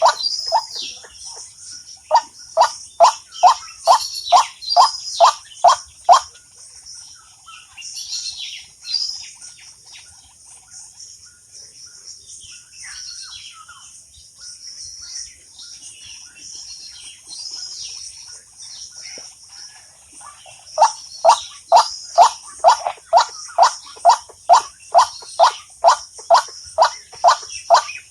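Bird call played as a trapping lure from a mobile phone: a short low whistled note repeated about two and a half times a second, in two long runs with a pause of about fifteen seconds between them. Fainter high chirps of other birds and a steady high insect trill run underneath.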